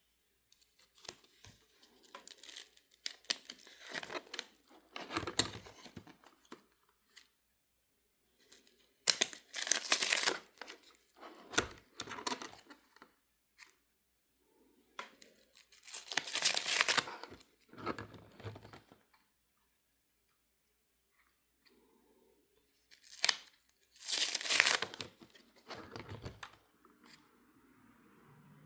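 Basketball trading cards being handled and sorted by hand: crinkly rustling in bursts of one to three seconds, with short pauses between them.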